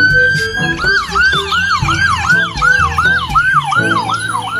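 Ambulance siren on an emergency run: a wail that rises and holds, then switches about a second in to a fast yelp, each sweep rising sharply and falling back, about three times a second.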